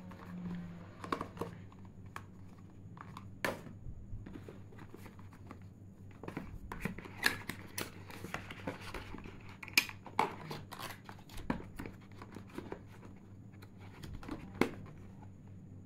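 Cardboard and paper packaging of a tablet's retail box being handled: a string of small taps and clicks as the paper envelopes and cardboard inserts are lifted out. There is a stretch of paper rustling and sliding about seven to ten seconds in, over a faint steady low hum.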